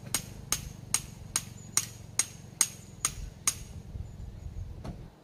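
Sharp, evenly spaced taps with a light metallic ring, about two and a half a second, stopping about three and a half seconds in, then one last tap near the end.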